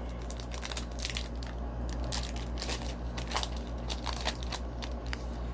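Trading cards being handled and sorted by hand: irregular crisp crinkling and clicking, over a steady low hum.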